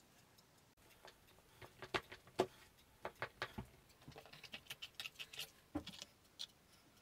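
A serrated knife cutting through a baked apple pie: a faint run of irregular crisp clicks and taps as the blade crunches through the crust, starting about a second in.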